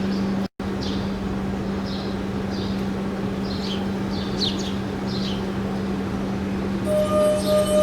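Steady low hum with scattered short, high bird chirps, cut out for an instant about half a second in. Near the end a singing glass starts to ring: a clear pure tone with a fainter overtone an octave above, its loudness pulsing a few times a second.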